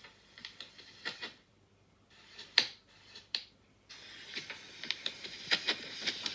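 Irregular mechanical clicks and knocks, with two sharper clicks in the middle and a faint steady hiss under further clicks in the last couple of seconds.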